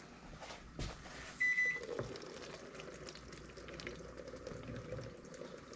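Shrimp cooking liquid poured from a glass baking dish through a plastic colander into a bowl: a faint, steady trickle of liquid. About a second and a half in, a kitchen appliance gives one short electronic beep, the loudest sound here.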